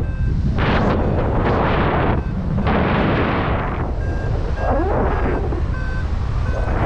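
Wind buffeting the microphone in heavy rumbling gusts that swell and drop away several times, with a few faint short beeps.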